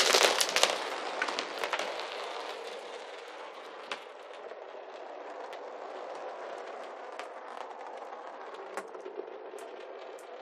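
A handful of marbles dropped onto a hard surface: a dense clatter of impacts at the start that thins out over the first couple of seconds, then the marbles rolling with a steady rumble and scattered clicks as they knock together, slowly fading.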